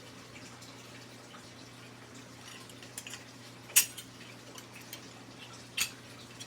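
Sharp metallic clicks of AK rifle parts being fitted back together, with two louder clacks about two seconds apart over a steady low hum.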